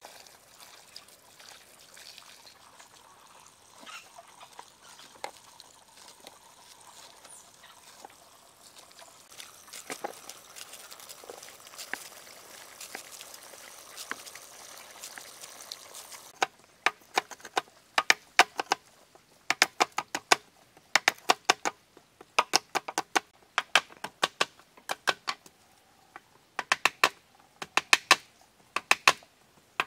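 Water trickling for about the first half, with a few scattered clicks. Then quick runs of sharp knocks, several strokes to a run with short pauses between, which are the loudest sounds.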